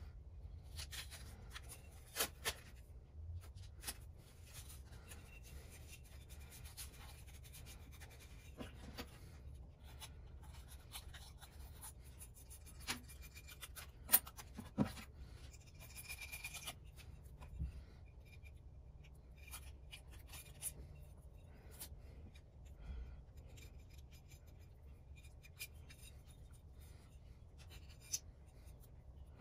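Faint handling sounds of blue painter's tape being pressed onto a small metal block plane body and trimmed along its edge with a small blade: soft scraping and rubbing with scattered small clicks and taps.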